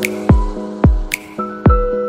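Electronic background music with a steady beat: deep kick-drum thuds about every half second, a sharp snare-like hit about once a second, over held synth chords.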